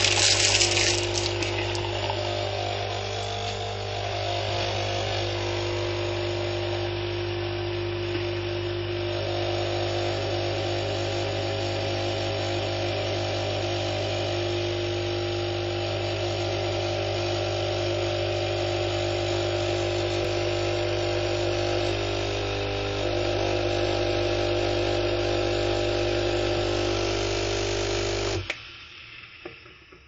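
Coffee machine running with a steady hum and hiss, a louder hiss right at the start. It cuts off suddenly near the end, leaving a short fading tail.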